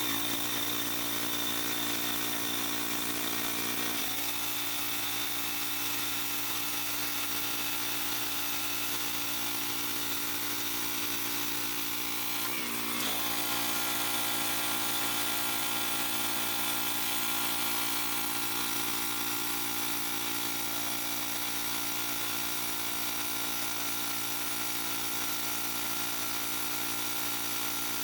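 Pressure washer running steadily: an even motor hum that holds one pitch, with a brief dip and recovery about twelve seconds in.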